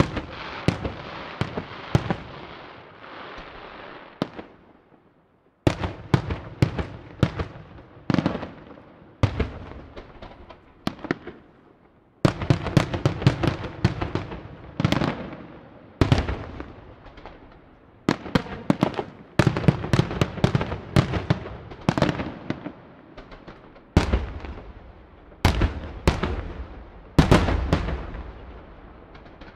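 Aerial firework shells bursting in rapid volleys of sharp bangs, each with an echoing tail. The first few seconds hold a dense crackling hiss under the bangs, and after a brief lull about five seconds in the volleys resume and continue.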